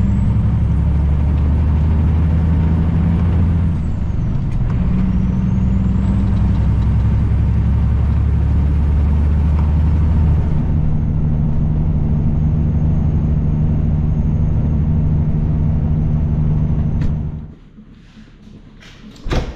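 Semi truck's diesel engine pulling under full throttle, heard from the cab, with a high whistle climbing as it revs. The pull breaks off for a gear change about four seconds in, climbs again, then settles to a steady run. Near the end the engine sound cuts off and a single thump follows.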